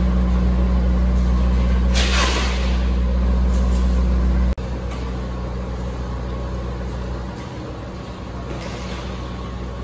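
Generator engine running with a steady low drone. A brief rushing noise comes about two seconds in, and the drone drops in level about halfway through.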